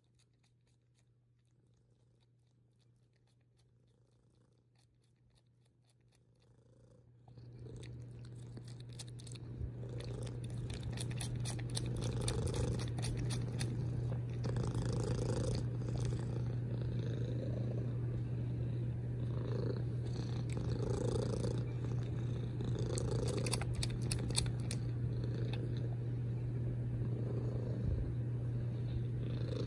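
A domestic cat purring, faint at first and then loud from about seven seconds in, a steady low rumble that swells and eases in a slow, even rhythm.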